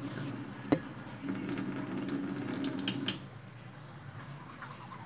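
Water running from a sink faucet, shut off about three seconds in, with one sharp knock about a second in.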